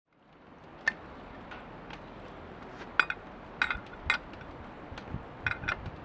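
A scattering of short, sharp metallic clinks as a brush cutter's steel blade and a wrench are handled at the blade's mounting head, about seven knocks at irregular intervals.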